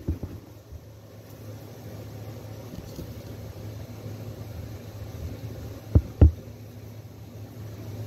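A steady low hum, with two dull thumps in quick succession about six seconds in.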